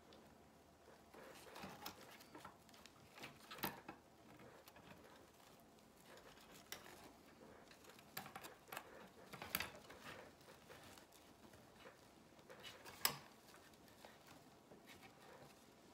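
Faint rustling and crinkling of red decorative mesh being bunched and looped by hand, with scattered sharp ticks and clicks, the sharpest a little before the end.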